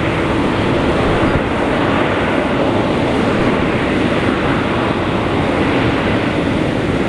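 Jet engines of an Airbus A380 running at taxi power: a steady, even rushing noise with no change in level.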